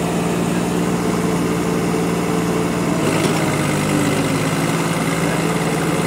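Diesel farm machinery engines running steadily, a tractor and a combine harvester. The low rumble changes about three seconds in.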